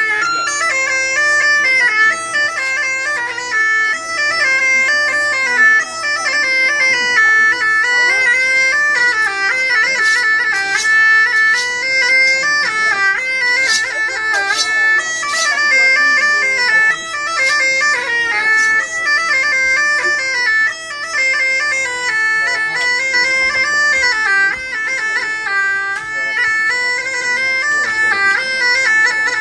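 Bagpipe playing a quick, stepping melody over a steady drone, with no break.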